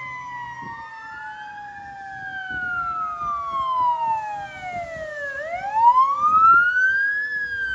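An ambulance siren on a slow wail, rising and falling about once every five seconds. Under it, a second siren from the departing fire engine slides steadily down in pitch. Engine and wet-road tyre noise get louder about six seconds in as the ambulance comes close.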